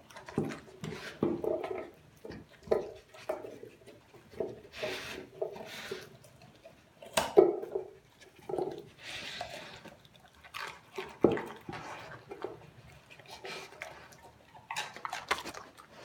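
A Doberman eating raw food from a stainless steel bowl: irregular wet chewing, crunching and lapping, with its teeth and muzzle knocking against the metal bowl, the sharpest knocks about seven and eleven seconds in.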